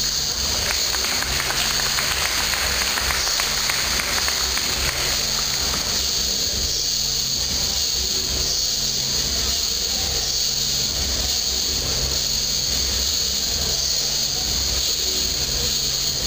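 Steady hiss of a camcorder microphone in a large sports hall, with a patter of applause during the first few seconds.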